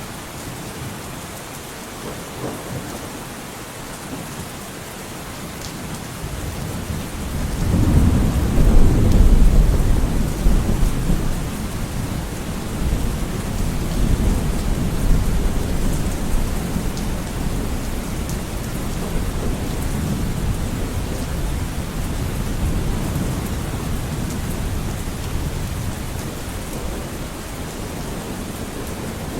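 Steady rain falling, with a long roll of thunder that builds about seven seconds in, is loudest a couple of seconds later, then rumbles on, slowly fading.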